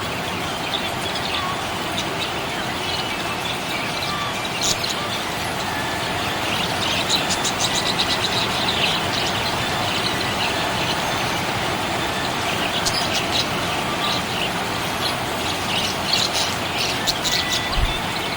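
Small pet parrots chirping in quick short bursts, busiest around the middle and again near the end, over a steady background noise.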